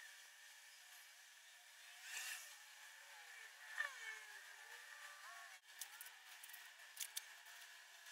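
Near silence: faint room tone with a few soft clicks in the second half.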